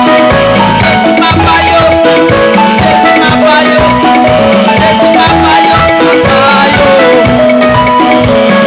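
Loud music with drums and percussion under long held notes.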